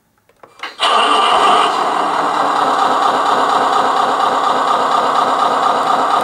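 Tamiya Scania R620 6x6 RC truck's sound unit playing a simulated diesel engine start: a few clicks, then the engine catches about a second in, runs higher briefly and settles into a steady idle.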